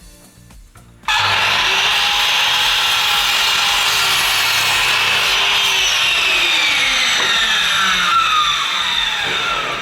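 Power saw cutting through a wooden board, starting abruptly about a second in and running steadily for about eight seconds, its pitch slowly dropping under load before it fades near the end.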